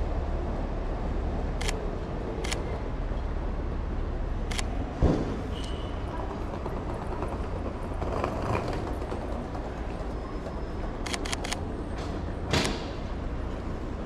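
Sony A7 III camera shutter clicking, singly a few times and then in a quick run of about four clicks, over a steady street background with a low rumble. A louder thump comes about five seconds in.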